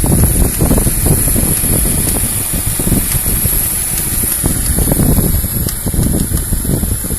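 Ford Mondeo Mk3 1.8 16v four-cylinder engine running with a rattle from the engine bay: an irregular low clatter over a steady high hiss.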